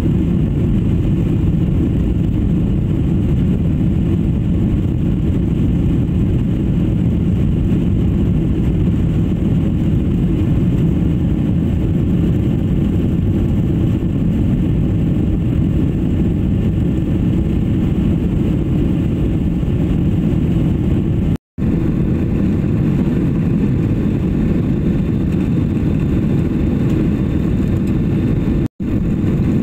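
Steady low cabin noise inside an airliner in flight: the jet engines and the rush of air past the fuselage. It cuts out for a moment twice, about two-thirds of the way through and near the end.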